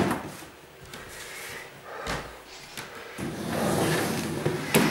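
Boxes and belongings being handled and moved: rustling, with a dull thump about two seconds in and a sharp knock near the end.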